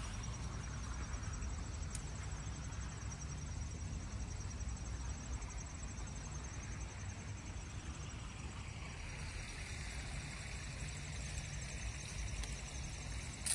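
Outdoor ambience: insects trilling in a fast, even pulse high in pitch, over a steady low rumble.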